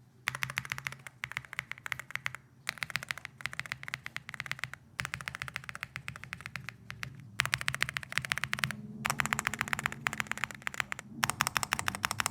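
Fast typing on a Yunzi B87 mechanical keyboard with pre-lubed Cocoa Cream V2 linear switches. The rapid keystrokes come in runs of two to three seconds, with brief pauses between them.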